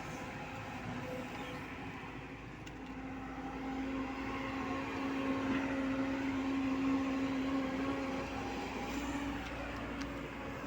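JCB excavator's diesel engine and hydraulics running steadily, growing louder midway through as the machine works under load, then easing off near the end.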